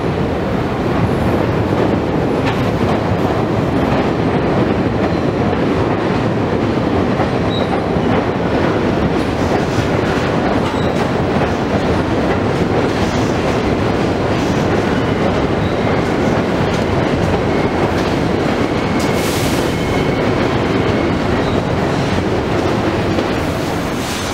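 New York City subway train pulling into a terminal station platform: a steady rumble of wheels on the rails with some clickety-clack, a brief hiss about three-quarters of the way through, and the sound easing off near the end as the train comes to a stop.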